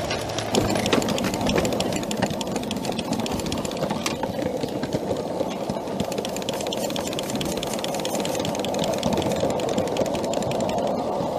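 2-inch-scale live-steam Shay geared locomotive running with its train: a rapid, even clatter from its engine and wheels on the rails.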